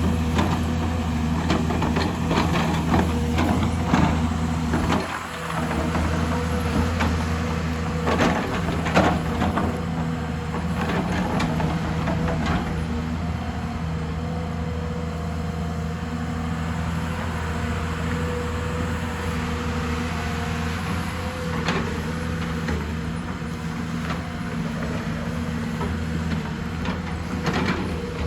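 Excavator's diesel engine running steadily under load. The bucket scrapes and knocks against rock, with sharp clanks mostly in the first half. A steady higher whine, typical of the hydraulics, runs through the middle.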